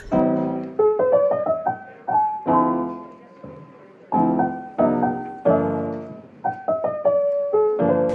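Solo piano background music: chords and a melody of struck notes, each note ringing and fading before the next.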